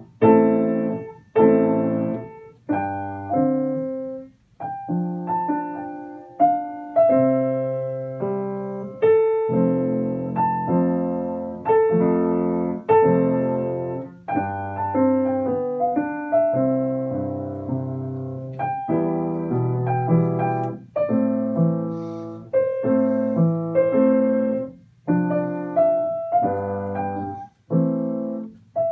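Grand piano played four hands as a duet: chords struck in a steady pulse, each ringing and dying away, with a few brief pauses between phrases.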